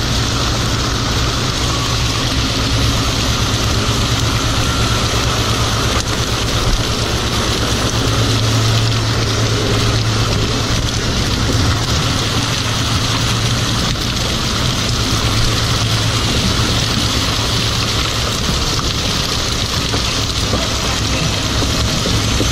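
Fishing boat's engine and deck machinery running steadily while the net is hauled aboard: a constant low hum under a broad hiss.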